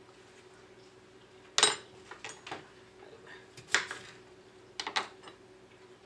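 Metal kitchen utensils clinking and clattering, a knife and spoon knocking against the sink and cutting board. There are a few sharp clatters, the loudest about a second and a half in and others around the middle and near the end, over a faint steady hum.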